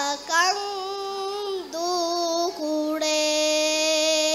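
A boy chanting raivaru, traditional Dhivehi sung verse, solo into a microphone: long drawn-out notes that bend slowly in pitch, the last one held steady for over a second before breaking off near the end.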